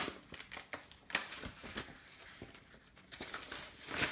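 Paper crackling and rustling as a folded instruction sheet is opened out by hand, in a run of short crackles with a quieter lull about halfway through.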